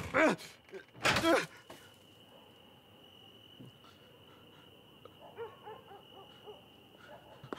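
A voice cries out twice near the start, without clear words, then it goes quiet except for a faint steady high tone and soft voice sounds about five seconds in.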